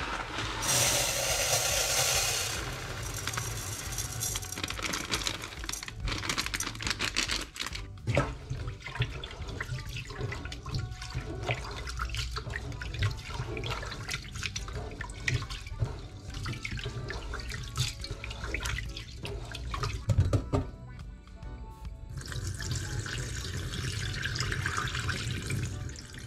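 Water running from a tap into a saucepan in a stainless steel sink, then a hand swishing and rubbing rice in the water with many small irregular splashes, and near the end a steady stream of cloudy rinse water poured off into the sink drain.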